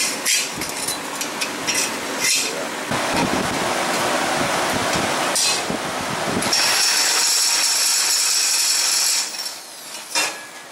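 Hand power drill boring a pivot hole through square steel tubing. It runs with a steady high whine for about three seconds past the middle, then stops. Before that comes clattery handling of the metal.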